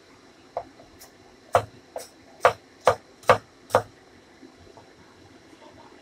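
A Chinese cleaver slicing a cucumber on a wooden cutting board: about eight sharp knocks of the blade on the board, roughly two a second, then a pause of about two seconds.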